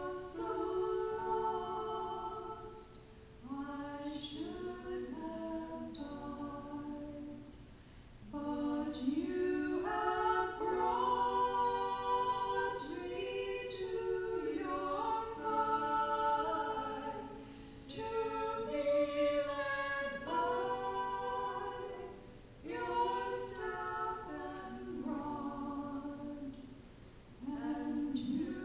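Soprano and mezzo-soprano singing a duet with digital keyboard accompaniment, in long sustained phrases with short breaks between them.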